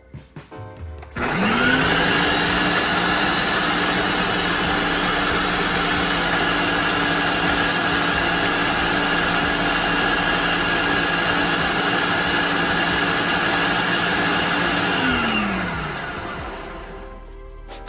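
Ninja Kitchen System countertop blender motor spinning up about a second in, running steadily as it purées fresh herbs, garlic, green pepper and olive oil into a green paste, then winding down with a falling pitch about fifteen seconds in.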